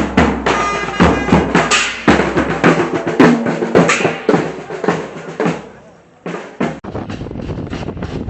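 Music with a drum-kit beat, stopping about six seconds in; after it, a steady rushing noise.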